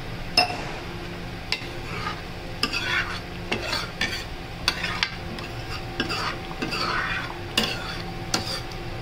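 A metal spoon stirring paneer gravy in a metal kadhai. The spoon scrapes and clinks against the pan about once a second, over a low sizzle of the gravy cooking.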